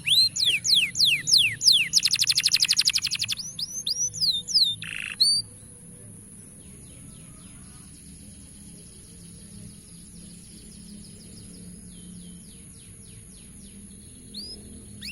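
Canary song: a series of quick downward-sliding whistled notes, broken about two seconds in by a fast rattling trill. About five seconds in the song drops away to faint, distant-sounding phrases, then picks up loudly again near the end.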